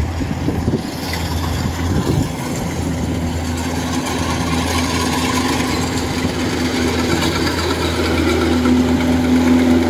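Kubota DC105X rice combine harvester's diesel engine running steadily under cutting load, a constant low hum with a whirring whine over it, like an aircraft engine. It grows a little louder near the end as the machine comes close.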